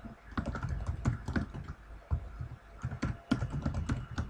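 Typing on a computer keyboard: a quick, uneven run of key clicks with a short pause about halfway through.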